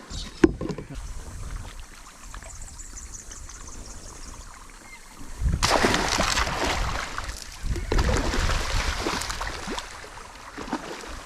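Water splashing and sloshing around a kayak in two louder spells, about halfway through and again around eight seconds in, after a single sharp knock near the start.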